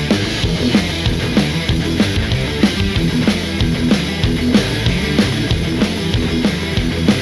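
Background rock music with a steady, driving drum beat.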